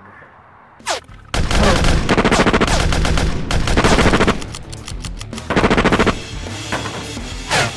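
Automatic rifle fire: a long rapid burst starting about a second and a half in, then shorter bursts near six seconds and near the end.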